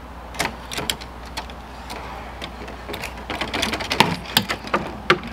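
Fishing rods and spinning reels clattering as they are lifted out of and shifted about in a boat's rod locker: irregular clicks and knocks, a few at first and busier after about three seconds.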